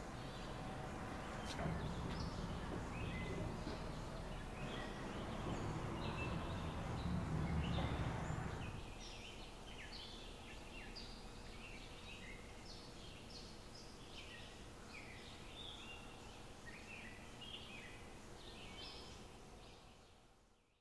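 Small birds chirping in many short calls over a low rumble; the rumble stops about eight seconds in, the birdsong goes on alone and fades out at the very end.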